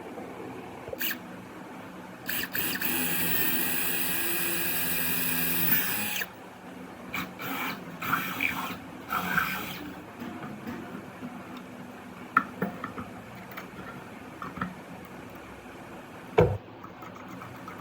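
Electric hand drill running steadily for about four seconds with a high whine, then triggered in several short bursts. Two sharp knocks follow later.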